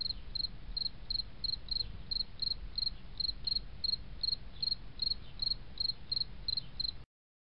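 Cricket-like chirping: short high chirps repeating evenly, about three a second, over a low background rumble. It cuts off suddenly near the end.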